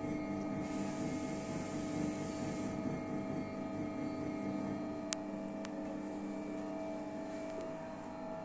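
Electric potter's wheel motor running at high speed: a steady hum with a whine. A hiss rises for about two seconds near the start, and there is a sharp click about five seconds in, then a fainter one.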